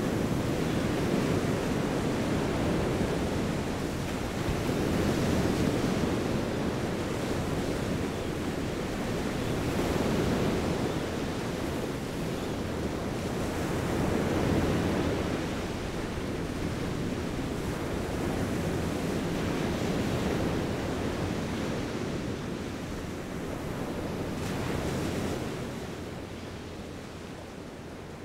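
Ocean surf breaking on a beach, the waves swelling and ebbing about every four to five seconds, fading out near the end.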